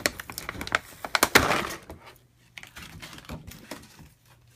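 Plastic board-game pieces and packaging being handled: a run of sharp clicks and rattles, a louder rustle about a second and a half in, then lighter ticking.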